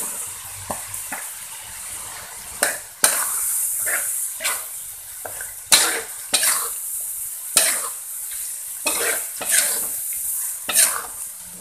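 Cubed raw beef sizzling as it fries in hot oil and sautéed spice paste in a metal wok. From about two and a half seconds in, a metal spoon scrapes and clinks against the wok roughly once a second as the meat is stirred.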